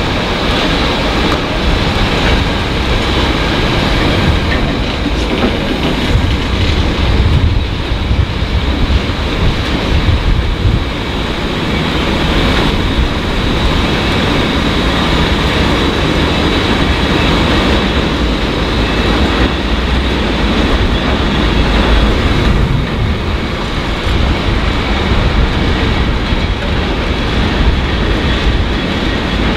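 Container freight train wagons rolling past on the rails: a continuous loud rumble of wheels with clattering over the rail joints, and a thin, steady high squeal from the wheels.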